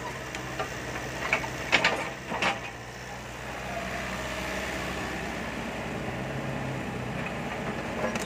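Kobelco SK50P mini excavator's diesel engine running steadily while the arm and bucket work. Three sharp knocks come within the first few seconds, then the engine runs on evenly with a faint rising whine.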